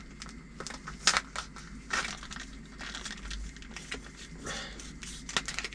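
Plastic food pouch crinkling and rustling as it is handled, opened and squeezed out, with a few sharper crackles.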